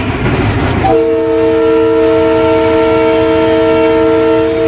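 Diesel locomotive's air horn sounding one long, steady chord of several notes at once, starting about a second in, over the running rumble of the train on the track.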